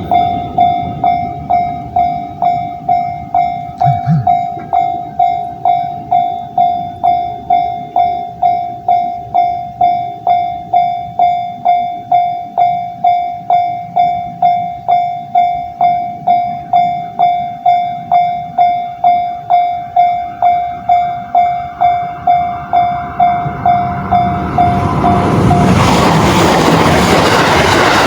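Electronic warning bell of a Japanese railway level crossing ringing about twice a second, each strike a single clear chime. In the last few seconds the chiming stops and a passing train's loud rumble takes over.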